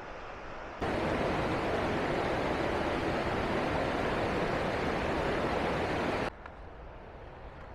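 Fast white-water mountain stream rushing over boulders close by, a loud steady rush of water. It starts abruptly about a second in and cuts off near the end, leaving a much quieter steady hiss.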